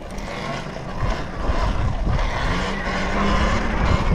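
Talaria Sting electric dirt bike riding off, with wind rushing over the camera microphone. The noise grows louder about a second in, and the faint motor whine rises and falls with the throttle.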